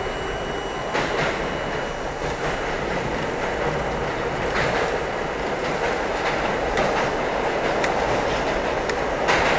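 R32 subway car running at speed through a tunnel: a steady rumble of steel wheels on rail, with irregularly spaced sharp clicks as the wheels cross rail joints.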